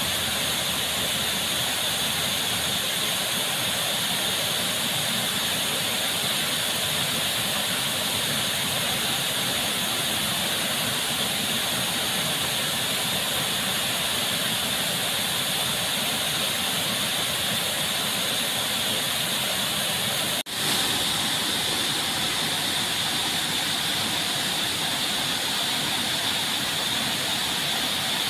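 Waterfall pouring into a pool: a steady rush of falling water. It cuts out for an instant about two-thirds of the way through, then carries on.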